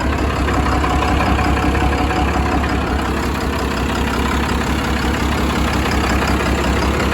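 P-pumped 24-valve Cummins inline-six diesel idling steadily with an even, deep rumble.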